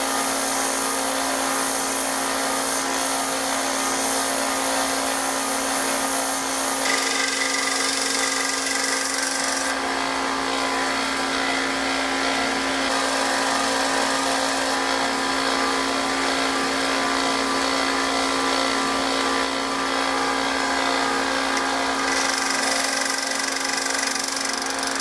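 A 1x30 belt sander running steadily alongside a shop vacuum while a high-speed steel lathe tool bit is ground against the belt. The high grinding hiss strengthens and eases several times as the bit is pressed on, repositioned and lifted.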